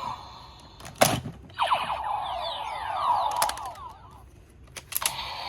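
Kamen Rider Gavv DX transformation toy: a sharp plastic click about a second in, then a run of electronic sound effects with many quick sweeping tones, and another click near the end.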